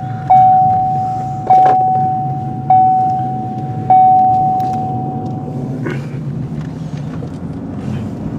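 Railroad crossing bell ringing, four strikes about a second and a quarter apart, the last ringing out and stopping about six seconds in. A car engine idles steadily underneath.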